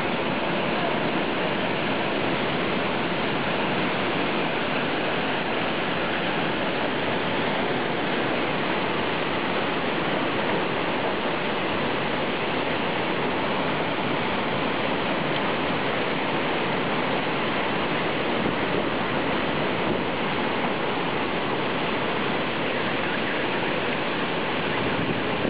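Tornado winds rushing steadily through trees, a loud, dense, unbroken noise with no separate knocks or gusts standing out.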